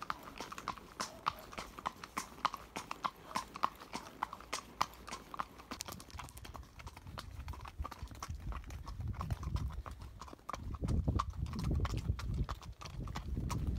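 Horses' hooves clip-clopping on a paved road at a walk, a steady rhythm of sharp hoofbeats. A low rumble joins in during the second half.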